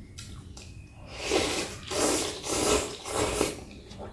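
Close-miked slurping of rice noodles and broth, in four long noisy slurps starting about a second in.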